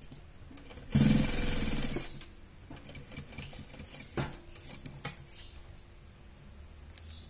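Electric sewing machine stitching in one short rapid burst of about a second, about a second in, then a few light clicks and rustles as the fabric is handled at the machine.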